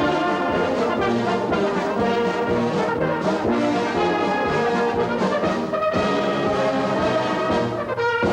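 Brass music playing, with sustained notes that change pitch every half second or so.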